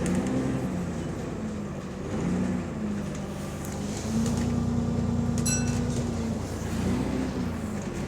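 A bus's diesel engine running while riding on board, its note stepping in pitch several times and holding steady from about four to six seconds in; the bus has an exhaust leak. A short electronic beep sounds about five and a half seconds in.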